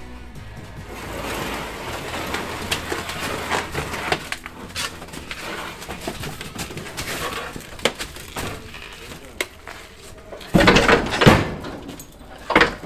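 A wheeled truck chassis being rolled and shoved about on a steel car trailer: a continuous rolling, scraping rumble with scattered knocks and metal clanks. Near the end come two heavy thumps in quick succession and then a third.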